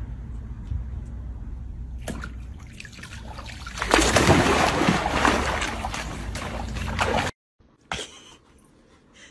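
A dog splashing into a swimming pool after a floating ball: loud churning and sloshing of water for about three seconds, ending abruptly.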